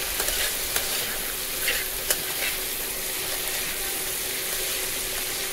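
Chickpeas sizzling as they fry in a wok, stirred with a metal spoon that scrapes and taps against the pan a few times in the first half.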